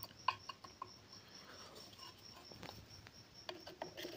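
Faint scattered clicks and taps of a small screwdriver working the screw of a sewing machine's metal face plate to take the plate off.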